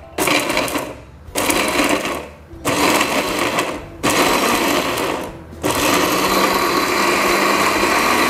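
Small electric blender grinding garlic, ginger, candlenuts and kaffir lime leaves with a little water into a spice paste: four short pulses of about a second each, then running steadily from a little past halfway.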